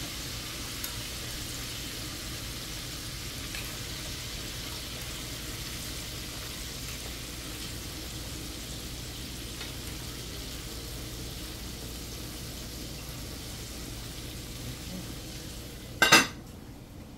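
Chicken pieces frying in hot oil in an open pot, a steady sizzle with the occasional faint clink of tongs turning them. About sixteen seconds in, two sharp clanks as the metal lid is set on the pot, after which the sizzle is muffled.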